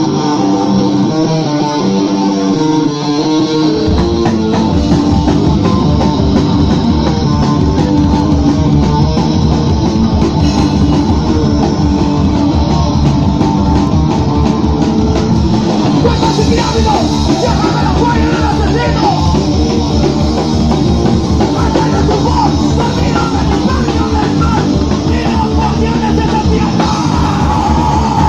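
Live punk rock band playing loud. An electric guitar plays alone at first, then the drums and bass come in about four seconds in and the full band plays on.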